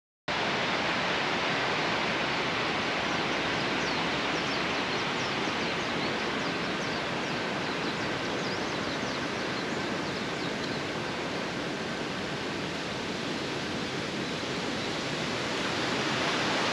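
Steady rushing of water from rain and a river below, an even hiss with faint high chirps now and then in the first half.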